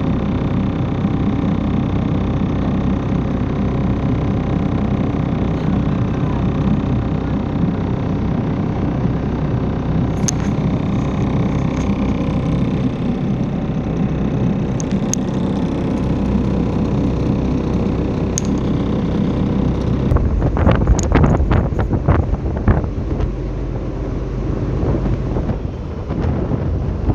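River ferry's engine running steadily, heard from the stern, with wind buffeting the microphone. The wind gusts get much heavier about twenty seconds in.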